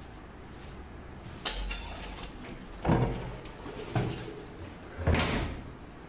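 Four clunks and knocks about a second apart, the loudest near the middle and near the end, as the plastic tub and body of a top-load washing machine are handled and turned over.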